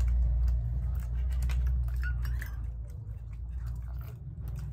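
Eating sounds during a momo eating challenge: scattered clicks and taps, typical of utensils on plates, and chewing, over a steady low hum.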